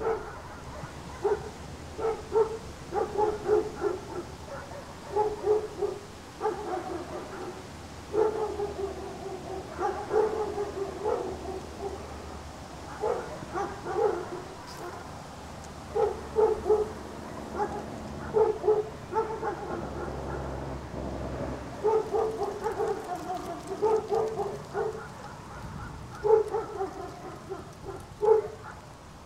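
Dogs whining and yipping in short, irregular calls, some bending up and down in pitch.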